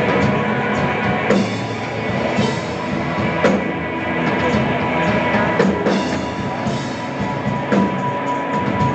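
Live rock band playing, with drum kit and electric guitar loud and dense through the PA. A steady high tone sits under the music.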